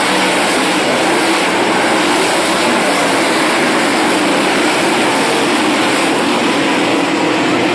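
A pack of dirt-track race cars running at speed around the oval, a loud, steady engine noise that does not let up as they pass.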